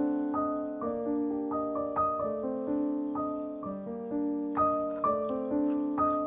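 Background piano music: a gentle melody of sustained notes.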